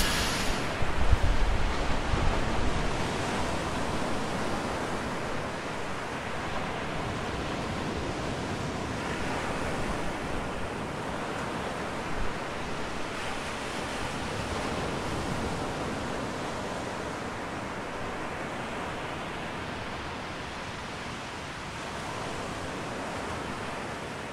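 Ocean waves washing as a steady, unpitched rush of water noise with slight swells, fading out near the end.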